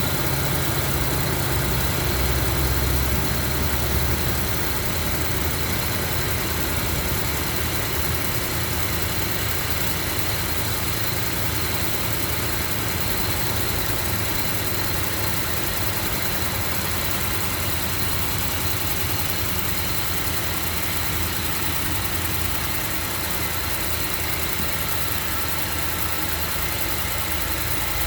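2008 Range Rover engine idling steadily on a cold start, with the noticeable ticking that the owner hears from the engine when it is cold. The low end of the idle is a little stronger for the first few seconds.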